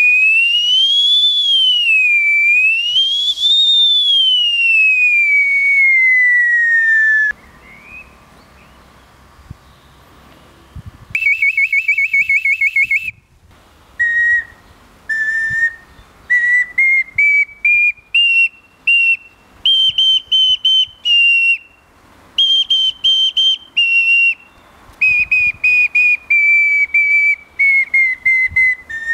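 A rowan may-pipe, a spring bark whistle, being blown. A high whistle slides up and down in pitch for several seconds, then comes a quick warbling trill, then a run of short notes stepping up and down like a simple tune.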